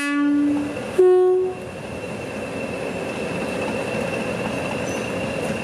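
Class 20 diesel locomotive sounding its two-tone horn, a low note then a higher note about a second in, each under a second long. The locomotive's engine then idles steadily underneath.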